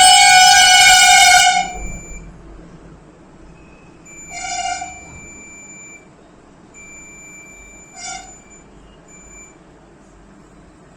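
Multimeter continuity buzzer sounding as the probes touch the amplifier board: a long buzz for the first second and a half, then two short buzzes, the meter's signal that the points tested are shorted or connected.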